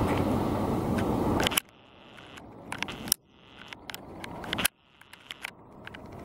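Steady rumble of a jet airliner's engines, cutting off abruptly about one and a half seconds in. After that it is quiet, with scattered sharp clicks of camera handling, broken by two more sudden cuts.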